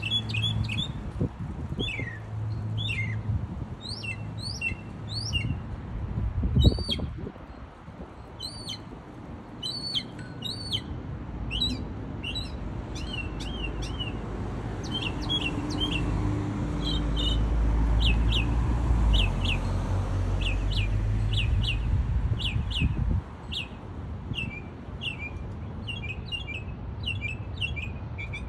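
Mockingbird singing a long run of varied phrases, each repeated several times in a row before it moves to the next, over a steady low traffic rumble that swells as a vehicle passes about two-thirds of the way in. A short loud thud comes about seven seconds in.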